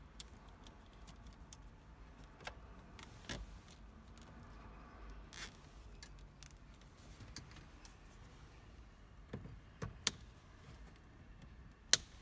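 Hands working a wiring loom under a car's plastic dashboard: scattered small clicks, taps and brief rustles of wire and plastic trim, with one sharp click near the end.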